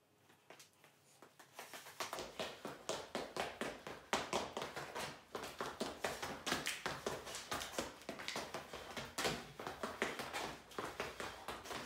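Quick, irregular footwork: sneakers tapping and scuffing on a hard floor as a player shuffles and flips his hips in a defensive stance, starting about two seconds in.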